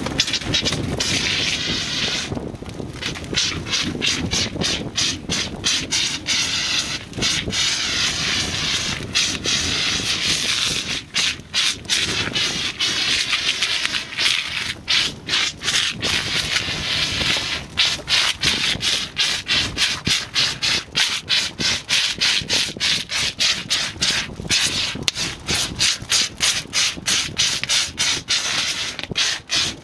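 Compressed-air foam hissing out of an Intelagard Macaw backpack CAF nozzle onto burning tires, with a low rumble underneath. The steady hiss starts to break up about a third of the way in and stutters several times a second near the end.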